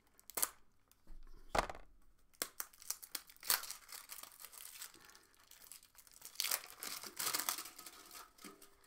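Packaging being slit with a knife and torn open by hand, the wrapper crinkling. A few sharp clicks come in the first two seconds, then two spells of crackling and tearing.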